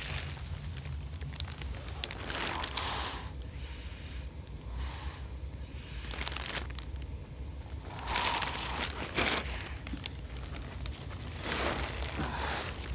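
Plastic sheeting crinkling and rustling in irregular bursts as someone crawls over it, over a steady low hum.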